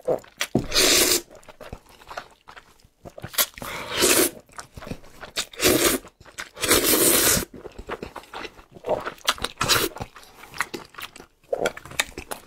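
Saucy noodles slurped up with chopsticks in about four long, loud slurps over the first seven seconds or so, followed by close-up chewing and mouth smacks.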